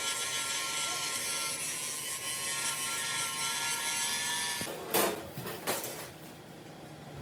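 Workshop tool noise: a steady rasping hiss of a tool working, which stops about four and a half seconds in. Two loud scrapes about a second apart follow.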